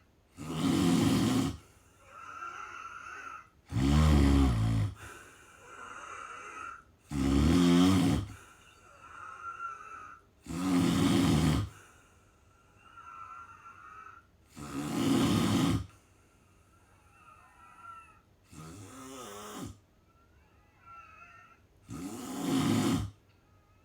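A sleeping person snoring: seven loud, rough snores, each about a second long and coming every three to four seconds, with quieter breaths between them.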